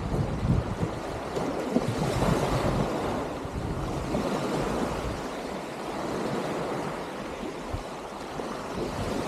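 Small Baltic Sea waves washing up on the shore, with wind buffeting the microphone in low gusts that are strongest in the first couple of seconds.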